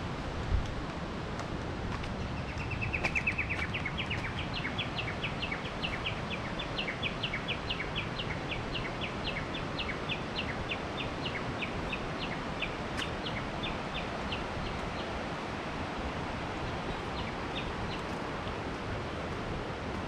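Steady rushing noise, most likely water at a mountain waterfall or stream. Over it, a small animal calls: a quick trill about two and a half seconds in, then a long run of short high chirps at a few per second, fading out after about fifteen seconds. A single low thump comes just after the start.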